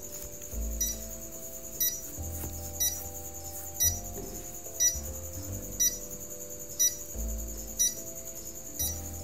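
Countdown timer sound effect, a short beep about once a second, over soft background music with held chords.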